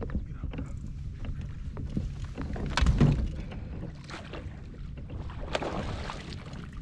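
Handling noise aboard a fishing kayak: a low rumble of wind and water under scattered knocks and clicks, with one louder thump about three seconds in.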